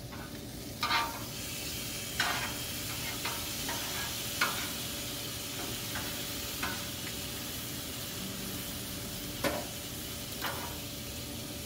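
Chicken and stir-fry vegetables sizzling steadily on a Blackstone propane griddle's steel flat-top, with short scrapes and taps of a metal spatula on the griddle every second or two.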